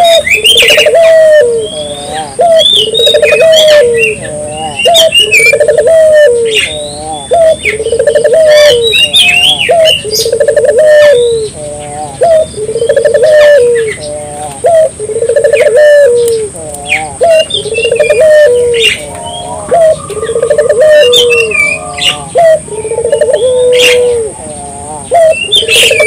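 Caged Barbary dove (burung puter) cooing over and over, one rolling coo about every second and a quarter, each rising then falling. Small birds chirp higher up between the coos.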